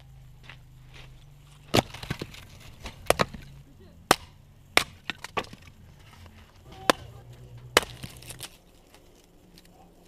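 Hatchet chopping and splitting birch firewood: a series of sharp chops about a second apart, some in quick pairs, with wood splintering.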